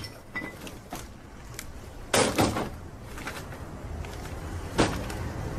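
A few knocks and thumps: two close together about two seconds in, and a sharper single knock near the end, over low background noise.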